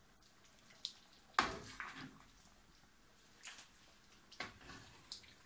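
Spoonfuls of beef stew, potatoes and gravy being ladled into a glass serving dish: several wet plops and splashes, the loudest about a second and a half in.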